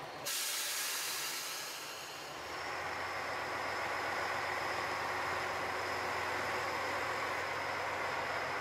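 A sudden hiss of air as the train's brakes release, dying away over about two seconds. Then the diesel engine of a JR Shikoku 1000 series railcar runs up and holds steady as the train pulls away.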